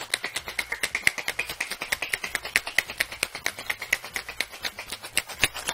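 Scotsman Gourmet ice cubes rattling hard inside a cocktail shaker as a gin fizz base of gin, lemon juice and sugar syrup is shaken, a fast, even clatter of about six knocks a second.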